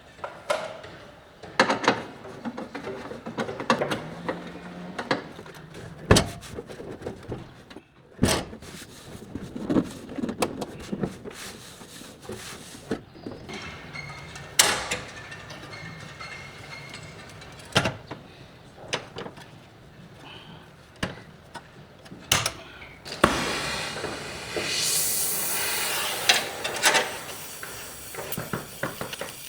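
Body shop work on sheet metal: scattered sharp knocks and clicks of tools, with a louder hissing noise for a few seconds about three-quarters of the way through.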